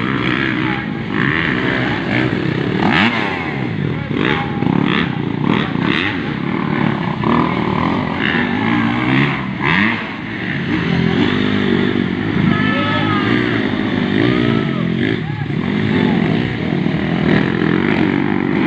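Several motocross dirt bike engines revving on track, their pitch rising and falling as the riders open and close the throttle, with overlapping engines at different pitches.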